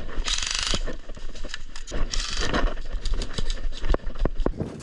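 Short full-auto bursts from airsoft electric rifles: a half-second burst at the start and a fainter one about two seconds in. Between and after them come quick clicks and knocks from players running with their gear.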